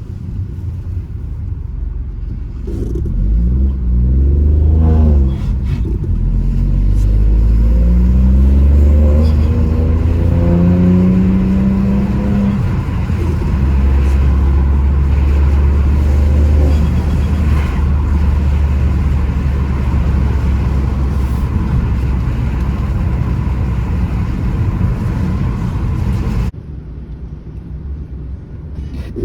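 Ford Focus 1.0 EcoBoost three-cylinder turbo engine under hard acceleration, its revs climbing several times with breaks at the gear changes, then running steadily at speed; the sound drops suddenly near the end. The engine is pulling without hesitation on its new racing ignition coils.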